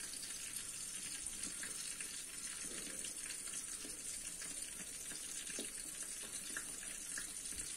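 Vegetable curry with cauliflower simmering in a wok: a faint, steady bubbling hiss with a few soft ticks.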